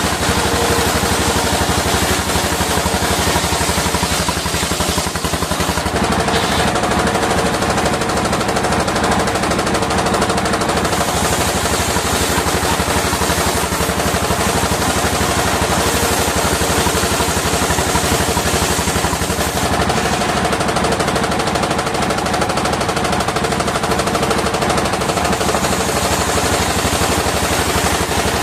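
Engine-driven circular sawmill running steadily, with a fast, even clatter from the engine and a steady hum through the whole stretch.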